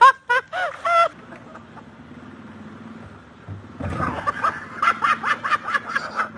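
Bursts of laughter in the first second, then a quieter stretch with a low hum, and from about four seconds in a rapid run of short high vocal bursts.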